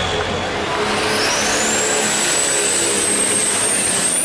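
Pulling tractor's engine running hard at full throttle, with a high whine that rises about a second in and holds.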